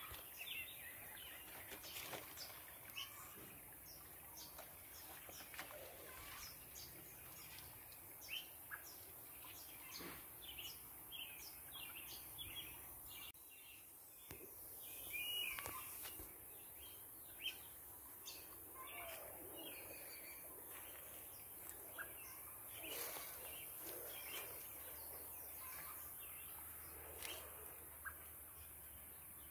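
Faint birdsong outdoors: many short chirps and calls from birds, scattered throughout, over a light steady hiss.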